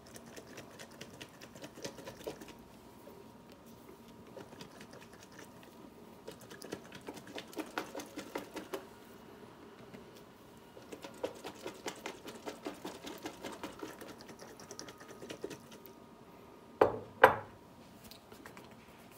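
A glass jar of bilberries, spices and alcohol being shaken by hand to mix the liqueur and dissolve the sugar: rapid rattling and clicking in bursts. Near the end come two loud thumps as the jar is set down on the countertop.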